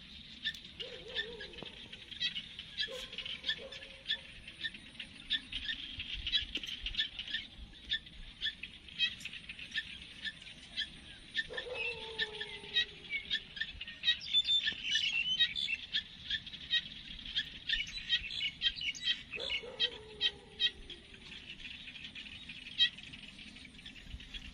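Small birds chirping steadily in the background, rapid short chirps all through, with a few lower calls that fall in pitch, about a second long each, heard four times.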